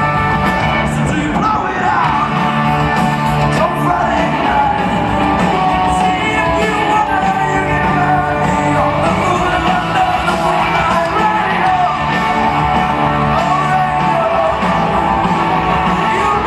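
Rock band playing live through a PA: electric guitars and bass with a male lead singer singing over them, loud and continuous.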